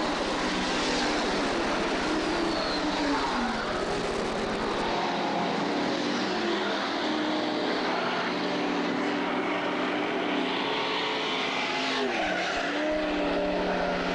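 A field of modified race cars running laps at speed, several V8 engines at once, their pitch rising and falling as they work through the corners and come past.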